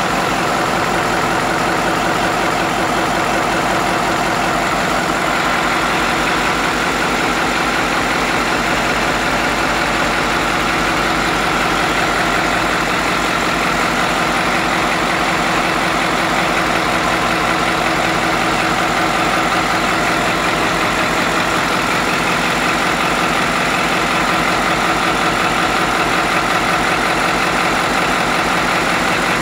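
Marine main diesel engine running steadily, a loud, even machine drone with no change in speed.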